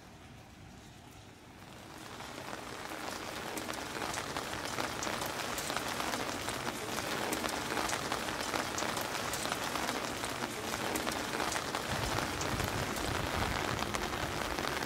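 Steady rain falling on leaves and pavement: a dense patter of drops that fades in over the first couple of seconds. A low rumble joins near the end.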